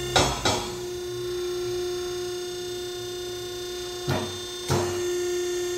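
Factory hydraulic log splitter's motor and pump running with a steady hum. Sharp clunks come twice just after the start and twice about four to five seconds in, as the splitting ram is worked up and down.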